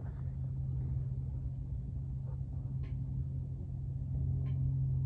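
Steady low rumble with a constant low hum, with a couple of faint short high ticks about three and four and a half seconds in.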